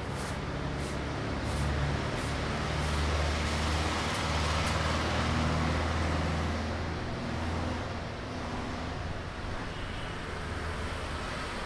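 Road traffic: a steady engine rumble and tyre noise that swells as a heavy vehicle passes a few seconds in, then settles back.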